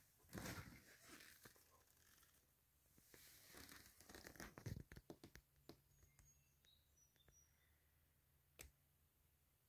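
Faint rustling and scraping handling noises as an upholstered door panel is turned over, with one sharp click near the end; otherwise near silence.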